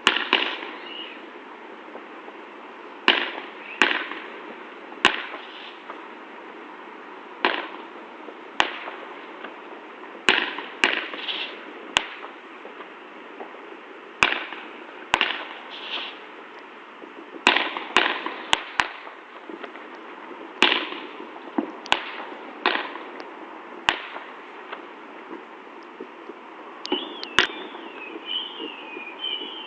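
Fireworks going off in irregular succession, a sharp bang every second or so, some followed by brief crackling. A wavering whistle comes in near the end.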